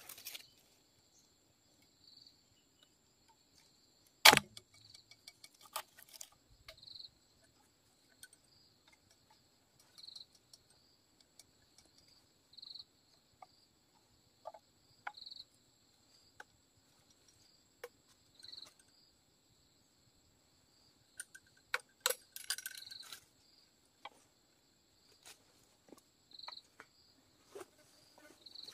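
Steady high insect drone, with a brighter chirp repeating about every two and a half seconds. Over it come scattered light clicks and taps of bamboo being handled. A single sharp knock about four seconds in is the loudest sound, and a quick cluster of knocks comes later.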